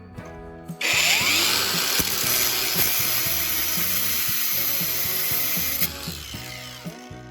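An electric power tool runs for about five seconds, starting abruptly about a second in and cutting off, over background music.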